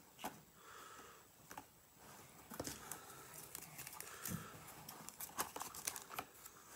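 Faint crinkling and rustling of packaging being handled, with scattered sharp clicks that grow busier after a couple of seconds.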